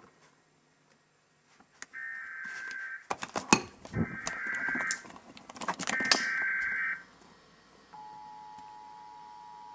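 Emergency Alert System SAME header: three one-second bursts of digital data tones about a second apart, with loud sharp clicks and knocks around the second and third bursts. About eight seconds in, the steady two-tone EAS attention signal begins, opening a required monthly test.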